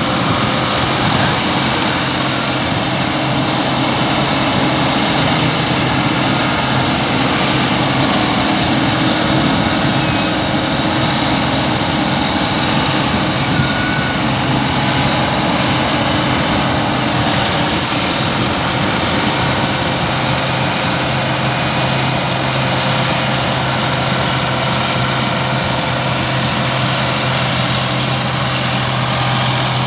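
Heavy farm-machinery engine running loudly and steadily at a constant speed, with a steady low hum under a wide mechanical noise.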